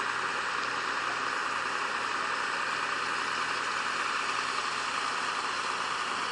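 Diesel engine of a road-rail excavator running steadily, heard as a low hum under a steady hiss.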